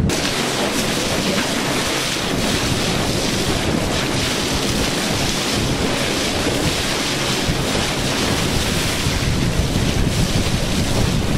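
Wind buffeting the microphone over the steady rush and splash of sea water along the hull of a moving boat.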